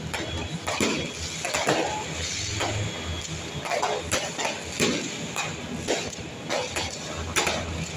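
Fireworks going off: repeated sharp bangs of bursting shells, about one or two a second at irregular intervals, over a continuous crackle and hiss.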